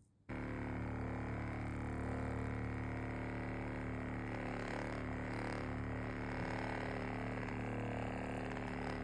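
A small electric motor starts abruptly just after the start and runs at a steady speed with an even, humming tone.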